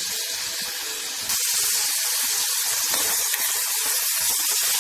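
Chopped onion frying in hot oil in a pan: a steady, high sizzle that gets louder about a second in.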